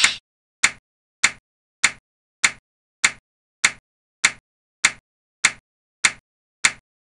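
Animation clock-tick sound effect: a short, sharp click about every 0.6 seconds, about a dozen in all. Each click marks one CPU clock tick counted for the running process.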